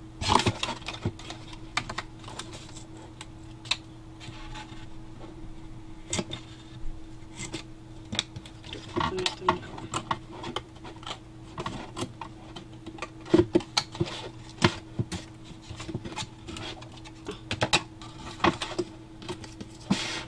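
Scissors snipping through thin cardstock covering a cardboard box corner, with the card crinkling and being handled. The sound is a series of sharp, irregular clicks and crackles.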